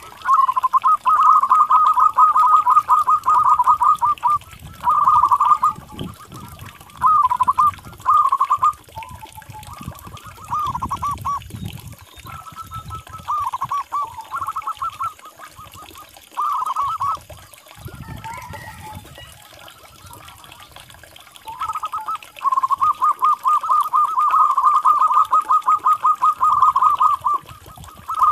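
Zebra doves (perkutut) cooing in runs of rapid, quavering staccato notes. One long run comes at the start and another in the last six seconds, with shorter phrases between them.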